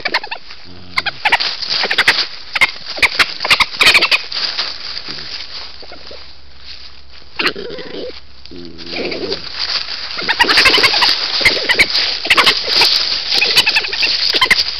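European badger cubs at play, making a racket: rapid squeals and chittering calls, a lull in the middle, a couple of lower calls about eight seconds in, then a dense stretch of chattering in the second half.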